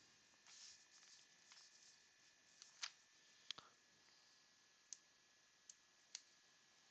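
Near silence with a faint rustle, then about six short, sharp clicks spaced unevenly: trading cards and their packaging being handled.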